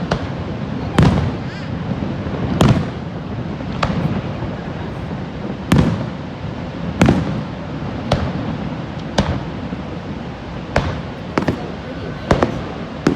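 Aerial fireworks going off in a display, about ten sharp bangs at irregular intervals of one to two seconds, over a steady low background rumble.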